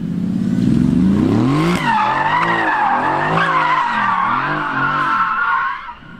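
Mercedes-AMG GT's twin-turbo V8 revving up, then rising and falling as the throttle is worked through a drift, over a steady squeal from the spinning rear tyres. Both cut off sharply near the end.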